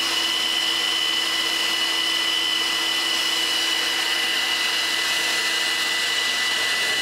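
Leaf blower running steadily into the compressor inlet of a Buick Grand National turbocharger, spinning the turbine up before the propane is lit: a steady rush of air with an even, high whine.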